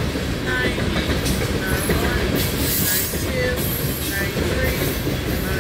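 Loaded coal train's freight cars rolling past, with a steady rumble and clatter of wheels on rail and short, high wheel squeals over it.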